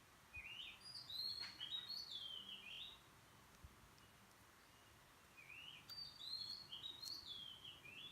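A songbird singing two similar phrases of quick whistled notes, each about two and a half seconds long and stepping downward in pitch, with a pause of a couple of seconds between them.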